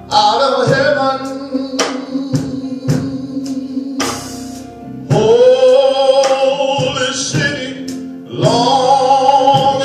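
A gospel band plays with drum kit, electric bass and hollow-body electric guitar, the drums hitting about twice a second. A man sings long held notes over it, one starting about halfway through and another near the end.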